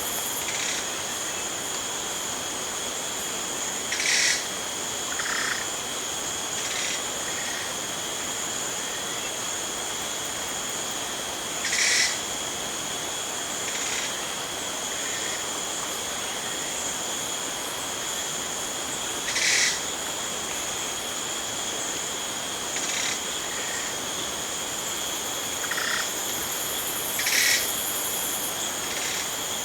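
Jungle ambience: a continuous high-pitched insect drone from crickets, holding two steady tones, with short animal calls rising above it about every seven to eight seconds and fainter calls in between.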